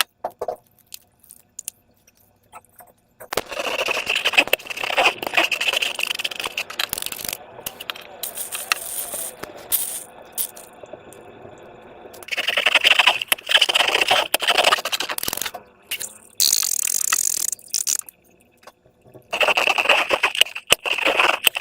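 Slime being squished and worked by hand, with dense irregular sticky clicks and scraping in several bursts separated by short quieter pauses.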